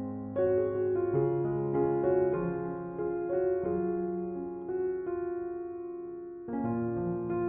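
Background piano music: slow, soft chords, with new chords struck about half a second in and again near the end.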